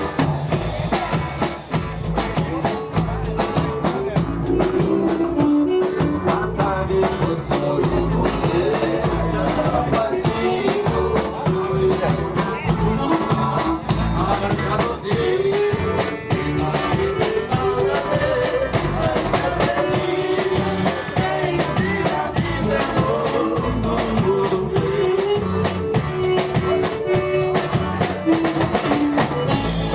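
Gaúcho vanera dance music played by a band: an instrumental passage with a melody line over guitar, bass and drums keeping a steady dance beat.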